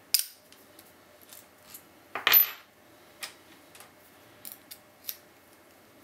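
Metal clicks and clinks from a disc-detainer padlock and its pick being handled. There is a sharp click at the start, a louder metallic clatter about two seconds in that rings briefly, and several lighter ticks after it.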